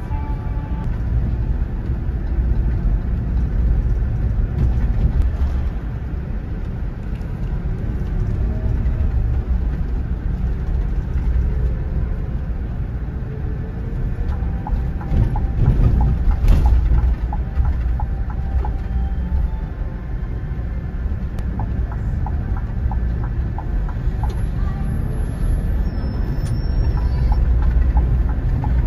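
Scania K400IB touring bus running at highway speed: a steady low engine and road rumble, with a couple of short runs of light ticking and a single sharp knock about halfway through.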